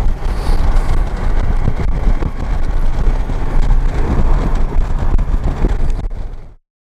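Motorcycle under way at road speed: a loud, steady, low rumble of engine and road noise that cuts off suddenly near the end.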